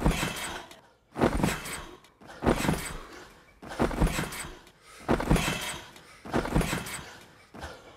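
Repeated thuds of bodies landing on a trampoline mat, about one every 1.3 seconds, each fading away with a short tail.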